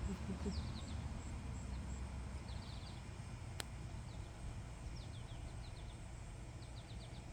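Small birds chirping in quick series of short, high, falling notes, a group every second or so, over a steady low outdoor rumble; a single sharp click about three and a half seconds in.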